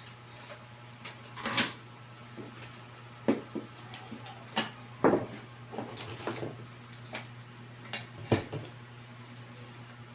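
Scattered clicks, knocks and light clatter of tools and small parts being handled during disassembly of an appliance, about ten separate strokes, over a steady low hum.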